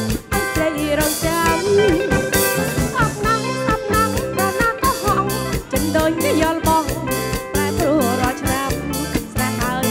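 Live band music: a woman singing into a microphone over electric guitar and a drum kit keeping a steady beat.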